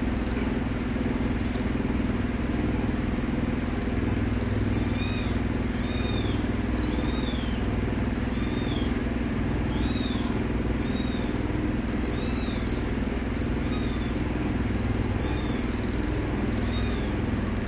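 Small kitten mewing repeatedly: about ten short, high-pitched mews, roughly one a second, starting about five seconds in, over a steady low hum.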